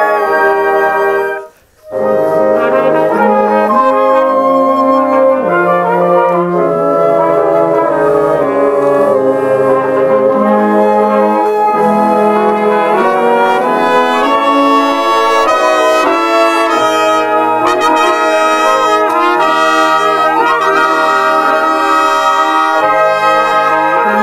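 Concert band music, every part played and overdubbed by one person, with brass to the fore, holding sustained chords that change every second or two. The band breaks off briefly near the start, then comes back in.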